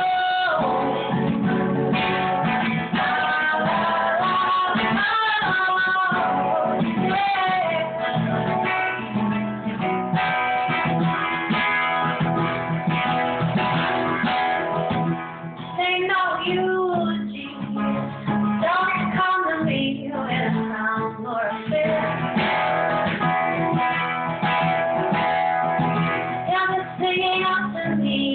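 A woman singing a song while accompanying herself on an acoustic guitar.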